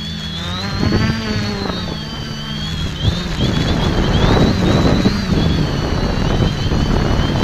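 X550AIOP quadcopter's electric motors and propellers buzzing, heard from a camera on the craft, with a high whine that wavers up and down as the throttle changes. Rough wind noise on the microphone grows louder from about three seconds in.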